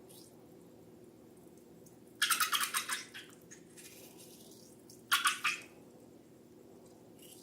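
Slime being squeezed and squished by hand: two short bursts of rapid crackling squelches, about two seconds in and again about five seconds in.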